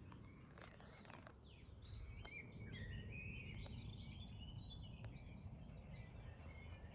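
Several birds chirping and singing faintly, over a steady low rumble, with a few faint clicks.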